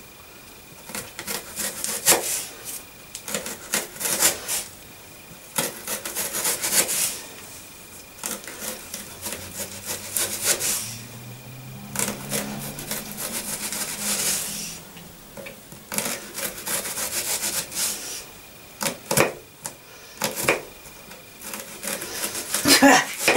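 Kitchen knife slicing an onion thinly on a wooden chopping board: a run of irregular cutting strokes, each one a crisp slice ending in a tap of the blade on the wood.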